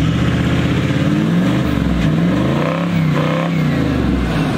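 Four-wheel-drive ute's engine revving, the revs climbing to a peak about three seconds in and then dropping back.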